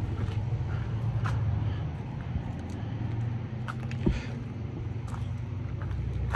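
Steady low rumble of a motor vehicle engine running, with a few light ticks.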